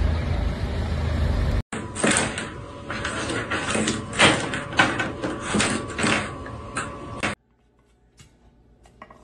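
A steady low rumble of street traffic, cut off after under two seconds by a run of irregular sharp knocks and clatters: a cat batting a plastic toothbrush about on a tiled floor against a door. The knocking stops abruptly about seven seconds in, leaving only a few faint ticks.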